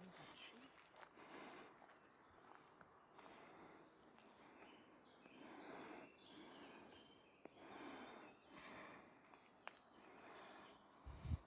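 Faint woodland ambience: soft, high-pitched chirping over quiet, slow crunches of footsteps on a gravel path, with a low bump of handling noise near the end.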